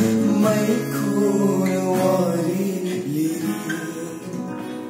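Acoustic guitars played with a man singing a song; the voice drops away about three seconds in and the music fades out.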